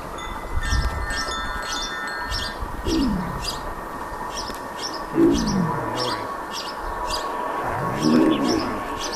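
Chime-like ringing with steady high tones, a regular pattern of sharp high clicks about twice a second, and three downward-sliding tones about 3, 5 and 8 seconds in.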